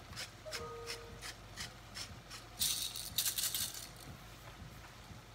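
Hand-twisted pepper mill grinding peppercorns over a pan: a steady run of ratchet clicks about three a second, with a louder, gritty stretch of grinding about halfway through.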